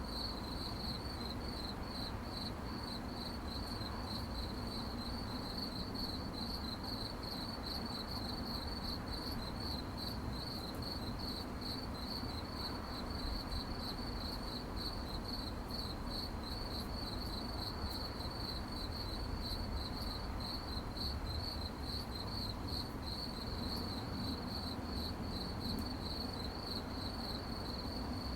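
Crickets chirping in a steady high-pitched trill of rapid pulses, with a faint low rumble underneath.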